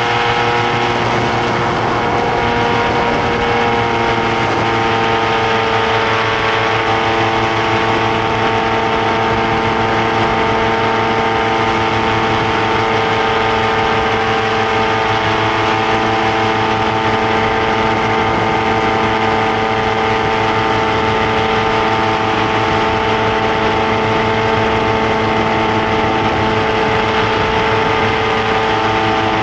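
Paramotor trike's engine and propeller running steadily in flight, a constant drone with a slight shift in pitch about three to four seconds in, over a steady rush of noise.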